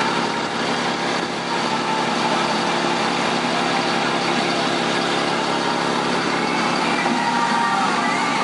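Bucket truck's engine running steadily at idle, with a faint higher whine that shifts in pitch near the end.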